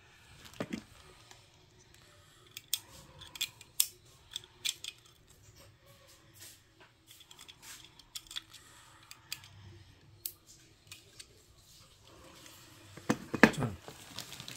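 Small sharp plastic clicks and handling noises from a Gillette Fusion5 razor, its cartridge and its plastic packaging. A run of clicks comes in the first few seconds, a few scattered ones follow, and a louder flurry comes near the end.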